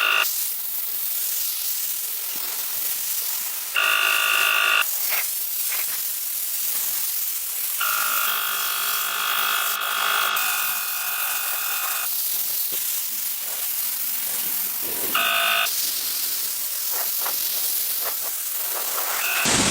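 Paint spray gun hissing steadily. A high whine from a small electric motor cuts in and out several times, longest for about four seconds in the middle.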